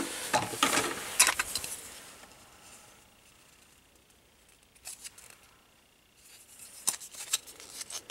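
A clear plastic bag crinkling and hard styrene model-kit sprues clicking against each other as the parts are handled in the bag. It comes in two spells, about the first two seconds and again from about six seconds in, with one click in between.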